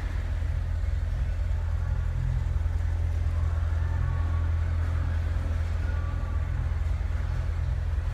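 The supercharged 6.2-litre V8 of a 2015 Corvette Z06 idling, heard from inside the cabin as a steady low rumble.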